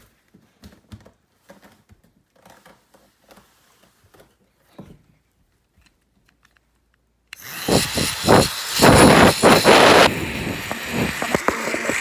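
Faint clicks and handling, then about seven seconds in a yellow toy blow dryer is switched on and its small motor whirs steadily. For the first couple of seconds it is held against the microphone and the sound is loud and buffeting, then it settles to a steadier, quieter whir.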